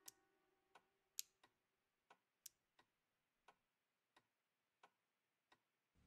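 Faint ticking of a clock, a steady tick a little faster than once a second, with two sharper, louder clicks between the ticks about one and two and a half seconds in.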